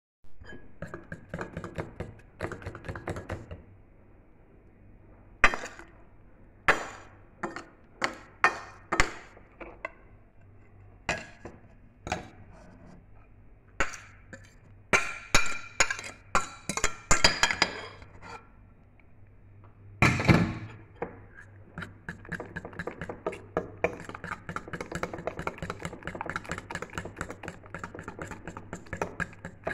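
Metal spoon clinking against a glass mixing bowl while stirring pancake batter: scattered sharp clinks, then a heavier knock about 20 seconds in, then a fast run of stirring strokes as flour is mixed in.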